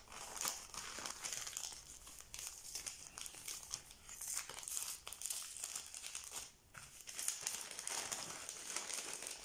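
Brown kraft paper envelope crinkling and rustling as it is unfolded and opened by hand, a continuous run of small crackles.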